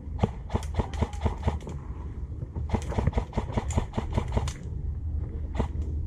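Airsoft guns firing in two quick strings of shots, about six or seven a second, then two more shots near the end, over wind rumbling on the microphone.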